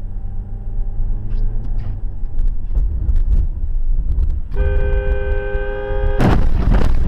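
A car's low driving rumble, then a car horn blares steadily for about a second and a half, cut off by a loud crash as the car collides with an oncoming truck.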